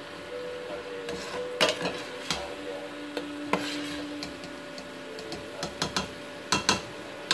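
Metal spoon stirring and scraping a thick spiced masala base in a stainless steel pot, with irregular clinks and knocks of the spoon against the pot's side, the sharpest about a second and a half in and twice in quick succession near the end.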